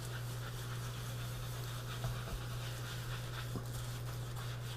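Faint rubbing of a paper towel wiped across a freshly dyed wood board to take off the excess dye, with a soft click about two seconds in, over a steady low hum.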